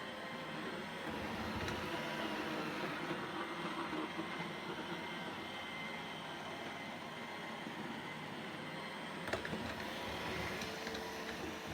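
iRobot Roomba i3+ robot vacuum running steadily while vacuuming, a continuous motor noise with a steady hum, and one sharp click about nine seconds in.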